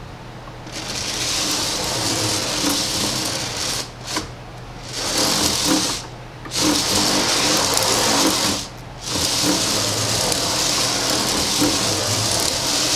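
Replacement gear motor of an R2-D2 replica's dome drive whirring as it turns the dome plate on its Rockler ring bearing. It starts about a second in and runs in several spells of a few seconds, with short breaks between them. The new motor is driving the dome properly.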